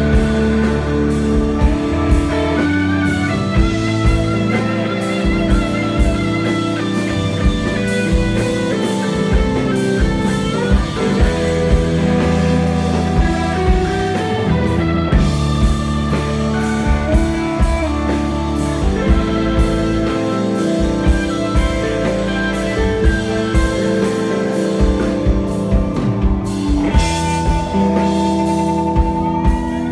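Live rock band playing: an electric guitar carries long, sustained lead lines with vibrato over bass and drums.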